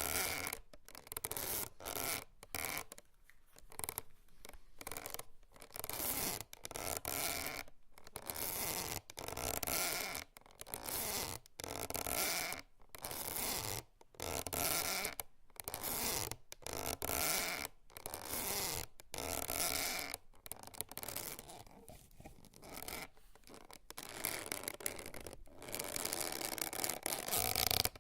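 Hemp rope creaking and rubbing in a series of short creaks, about one a second. Near the end they run together into a denser crackling.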